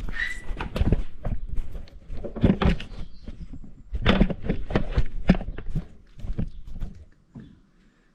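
A run of irregular thumps and knocks, stopping about seven seconds in.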